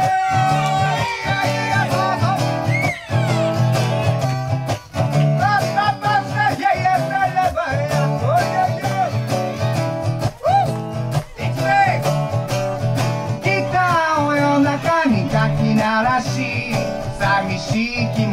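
Acoustic guitar strummed in a steady rhythm as a song's introduction, with a wavering melody line above it.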